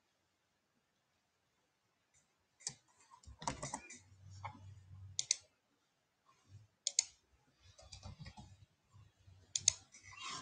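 Computer keyboard typing and clicking in a few short, scattered bursts with pauses between them, faint, with some soft low thuds.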